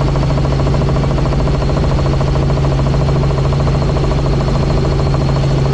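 Helicopter running steadily in flight: a constant loud drone of engine and rotor with a strong low hum.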